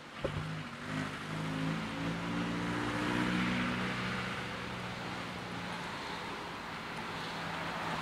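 Road traffic: the steady noise of passing vehicles, swelling as one goes by about three to four seconds in. A single sharp knock comes just after the start.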